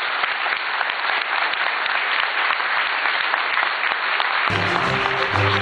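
Audience applauding steadily after a speech. About four and a half seconds in, background music with held low notes fades in under the clapping.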